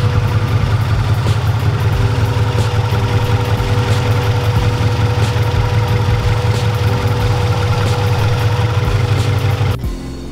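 Honda Integra four-cylinder engine idling steadily with the hood open, a low even rumble with a thin steady tone above it. It starts abruptly and stops shortly before the end.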